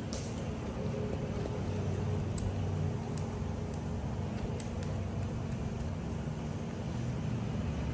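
Steady low hum, with a few faint clicks from a kitten lapping milk out of a steel bowl.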